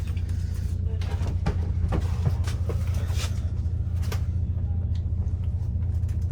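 A steady low engine hum, with scattered short knocks and clunks over it.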